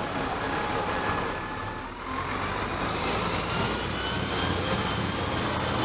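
A red London double-decker bus passes close alongside, its engine running with a faint whine that rises slowly, over steady roundabout traffic noise.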